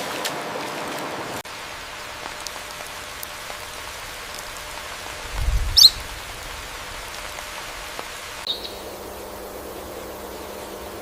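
Steady outdoor nature ambience with a rain-like hiss. About halfway through comes a short low rumble with a high chirp, the loudest moment, and a brief high chirp follows about three seconds later.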